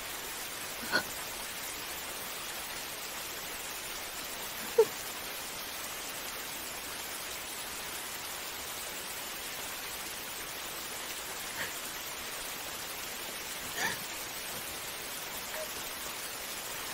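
Steady rain falling, with a few brief sobs: one about a second in, a sharp one near five seconds and another near fourteen seconds.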